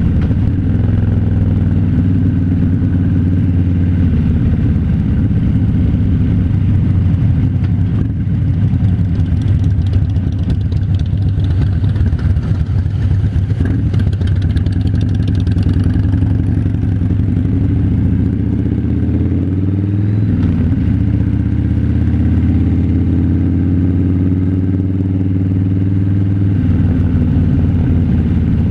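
Harley-Davidson V-twin motorcycle engine running steadily under way, heard from the rider's position. The engine note shifts in pitch about two-thirds of the way through.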